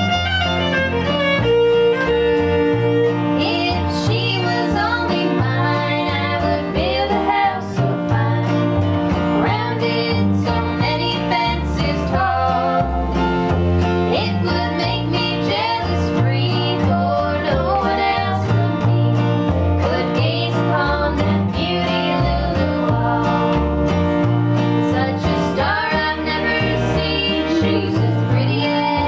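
Acoustic string band playing an old-time country tune live: fiddle carrying gliding bowed lines over a strummed acoustic guitar and a steady upright bass beat.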